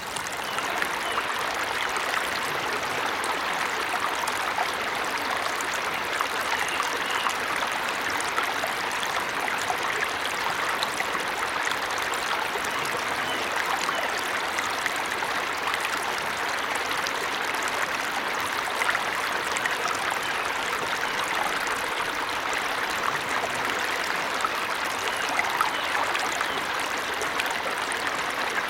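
Small forest waterfall running steadily: an even, continuous rush and splash of falling water.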